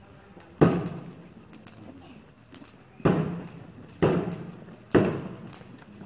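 Four loud single strikes, one about half a second in, then three more about a second apart near the end, each with a short ringing tail, paced like a procession's slow beat.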